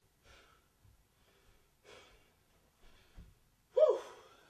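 A person breathing hard: faint breaths and exhales, a soft low thump just after three seconds, then a louder short voiced sigh near the end.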